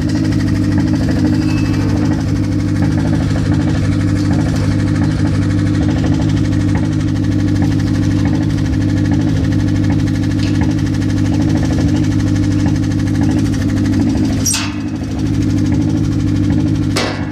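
Mazda car engine idling steadily. Its running carries the strange noise that appeared after the car stood unused for a long time. Two sharp clicks come near the end, each with a brief dip in the sound.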